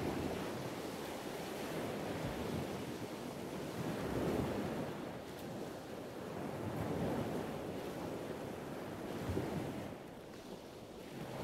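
Surf washing onto a sandy beach, swelling and easing every few seconds, with wind on the microphone.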